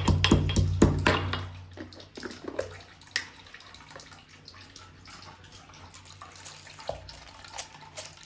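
Background music with an even beat that fades out about a second and a half in, leaving faint clicks of cookware and a soft hiss.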